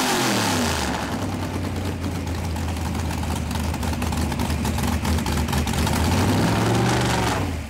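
Supercharged nitro-burning drag-racing engine of a fuel altered idling with a lumpy cackle. It settles from a throttle blip in the first second and rises briefly again near the end.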